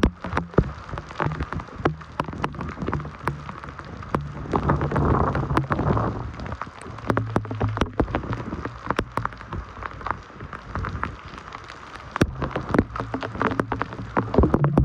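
Heavy typhoon rain: many separate drops striking a hard surface close by over a steady hiss, swelling louder for a couple of seconds about four seconds in. A low hum underneath steps up and down in pitch.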